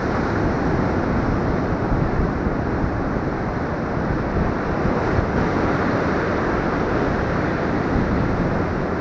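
Steady rush of surf washing up the beach, with wind buffeting the microphone.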